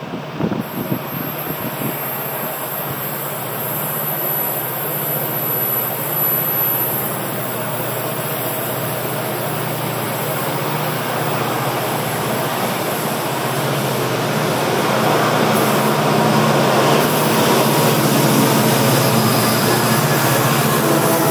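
Pacific National 81-class diesel-electric locomotives, EMD 16-cylinder two-stroke engines, hauling an ore train toward and past the microphone. A steady engine drone grows louder as they approach. There is wind buffeting the microphone at the start.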